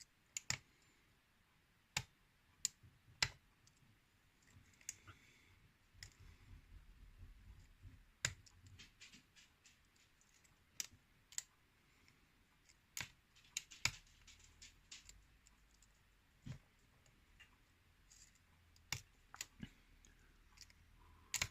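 Lock pick working the six pins of a pin tumbler challenge lock under tension: faint, irregular clicks and light scraping as the pins are probed and set one at a time.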